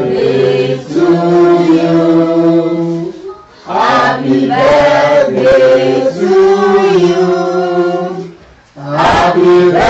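A man singing in long, held notes, in three phrases with short breaks between them.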